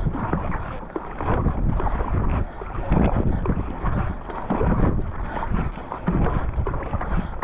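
Quick kayak paddle strokes, the blades splashing in and out of the water, with wind buffeting the microphone.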